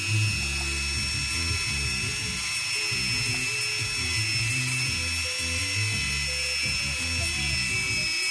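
Flexible-shaft rotary tool with an abrasive stone running at a steady high-pitched whine as it grinds the worn contact faces of a Nissan TD27 diesel engine's rocker arms, with background music.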